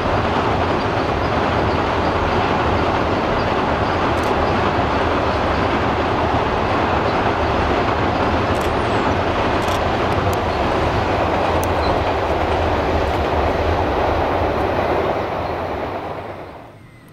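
Passenger carriages rolling steadily across a long rail viaduct, a continuous loud rumble of wheels on rail that fades out near the end.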